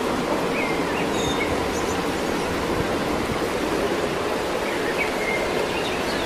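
Outdoor ambience: a steady rushing noise, with a few faint bird chirps about a second in and again near the end.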